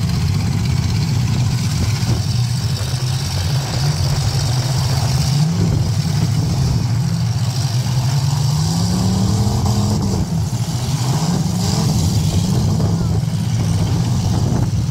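Demolition derby cars' engines running and revving together, their pitch rising and falling as the drivers rev.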